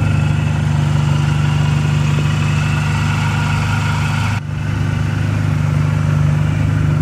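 2006 Mini Cooper S's supercharged four-cylinder engine idling steadily through a Borla exhaust, with a brief break about four and a half seconds in.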